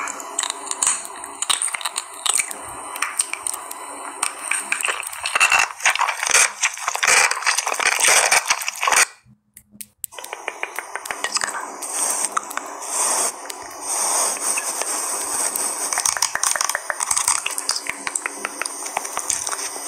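Close-miked ASMR sounds: a dense run of crisp clicks and crackles, broken by about a second of silence halfway through.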